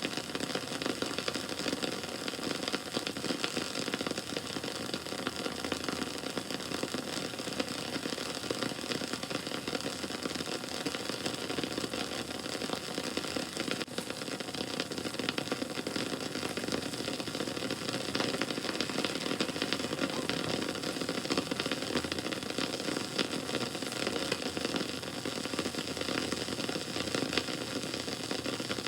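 Bonfire burning, with continual crackling and popping over a steady rush of flame.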